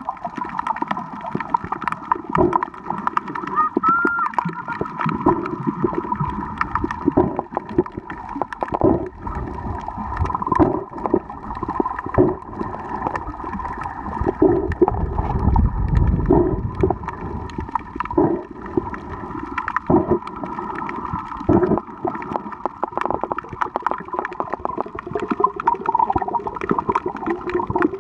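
Muffled underwater sound picked up by a camera held below the surface on a snorkel over a reef: water sloshing and gurgling against the camera, with many small clicks and knocks and a stronger low surge about halfway through.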